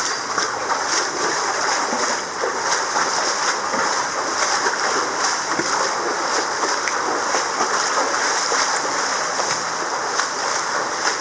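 Steady rush of flowing and falling water, like a waterfall or stream close by.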